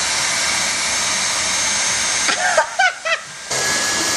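Dyson V6 Absolute cordless handheld vacuum running with a steady rush of air and a thin high whine as it sucks up spilled sugar and rice. It cuts out for about a second after two and a half seconds and then starts again.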